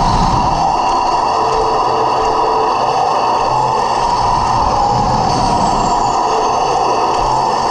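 Electric drive motors and gearboxes of a 1/16 Heng Long T-90 RC tank whining steadily as it drives and turns on gravel, with the rattle of its tracks, heard up close from the hull.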